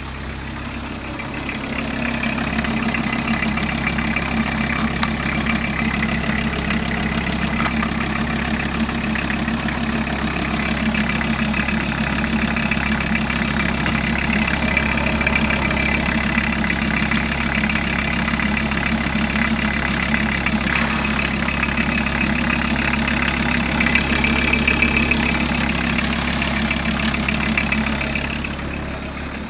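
VW T4's 2.4-litre AAB five-cylinder diesel engine idling steadily. The sound grows louder about two seconds in and drops again near the end.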